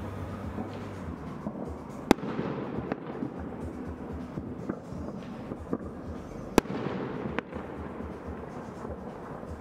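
Fireworks going off: two sharp loud bangs, about two seconds and six and a half seconds in, with smaller pops between, over a steady crackling din of fireworks.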